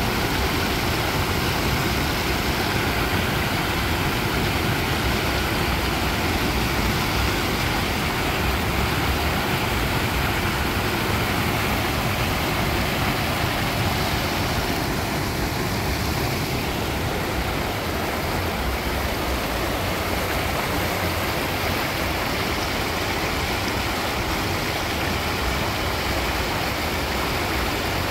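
Water pouring over a concrete weir and churning in the pool and channel below: a steady rushing roar, the weir running high with runoff from a recent rainstorm.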